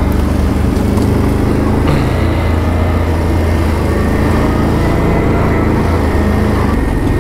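ATV engine running steadily at an even, light throttle while riding, with a thin steady high whine from about two seconds in. The cooling fan is running constantly.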